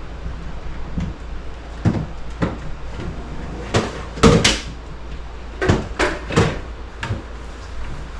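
About a dozen irregular knocks and bangs, the loudest a little past the middle, over a steady low hum.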